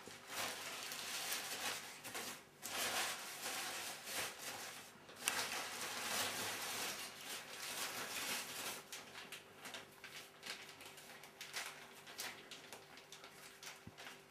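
Irregular rustling and light handling noises from food being prepared at a kitchen counter, busier in the first half and sparser near the end.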